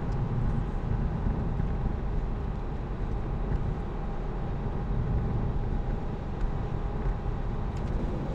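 Steady road and tyre noise of a Tesla Model 3 driving, heard from inside the cabin, with no engine sound since the car is electric.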